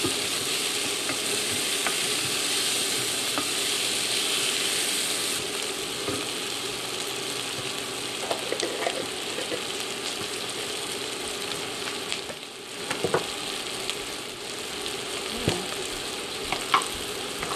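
Chopped onion, sweet potato and mushrooms sizzling in olive oil in a pot while being stirred with a wooden spoon. The steady sizzle is louder for the first five seconds or so. The spoon knocks against the pot now and then in the second half.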